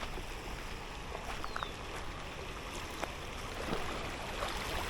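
River water running steadily over a riffle, with a few faint clicks.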